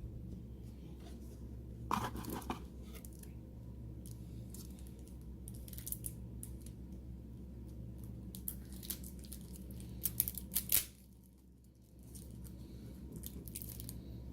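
A Magic: The Gathering card pack's foil wrapper being torn open and crinkled by hand, with irregular rustles and sharp crackles, loudest about two seconds in and again around ten to eleven seconds. A steady low hum runs underneath.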